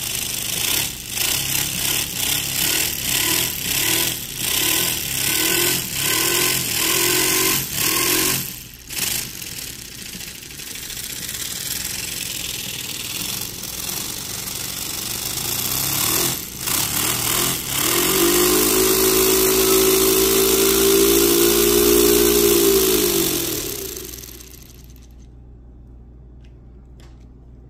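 Miniature paper V-twin air engine running on compressed air, its exhaust chuffing in an uneven pulse at first and dropping out briefly about nine seconds in. Near the end it revs up to a steady high-pitched buzz, then slows and dies away as it winds down.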